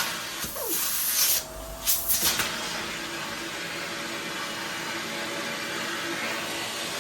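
Vacuum cleaner running with a steady hiss. About two seconds in there are a brief dip and a few louder rushes of air.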